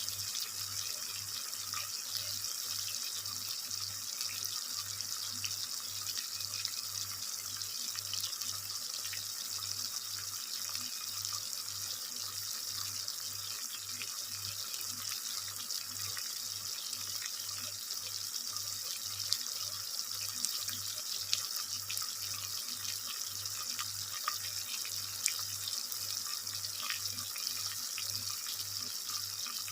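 Water running steadily from a kitchen tap into a sink, with a few small clicks and knocks.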